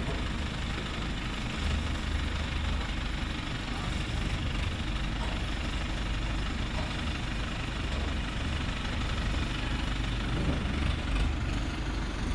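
Heavy vehicle's diesel engine idling steadily with a deep, even hum.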